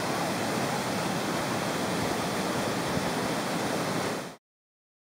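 A waterfall close by, a steady loud rush of falling water and spray that cuts off suddenly about four seconds in.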